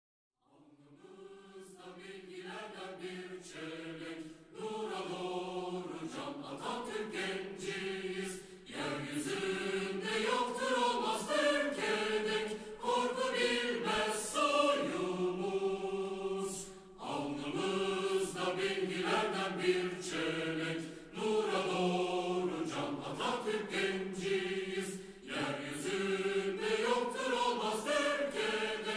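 A choir singing with music, fading in over the first few seconds, in phrases broken by short pauses about every four seconds.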